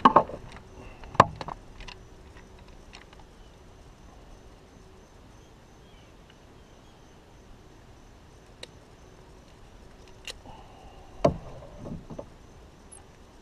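Sharp clicks and knocks of a caught largemouth bass being handled on a lip-grip tool and hanging scale in a canoe: two loud knocks about a second apart at the start, then another knock with a few smaller clatters about eleven seconds in, quiet in between.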